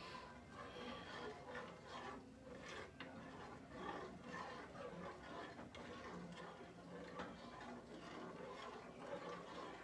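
Faint, irregular clinks and scrapes of a spoon stirring hot cocoa in a small metal saucepan.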